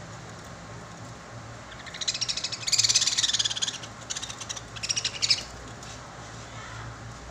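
Lovebirds chattering in rapid, high-pitched bursts: a long burst about two seconds in, then two shorter ones, over a steady low hum.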